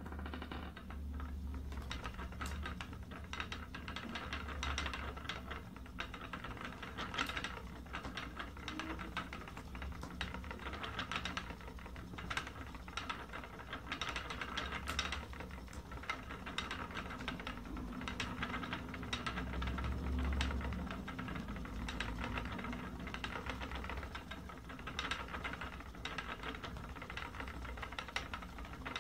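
Wooden treadle spinning wheel running as yarn is spun, giving a steady run of clicks and knocks from its moving parts over a low rumble.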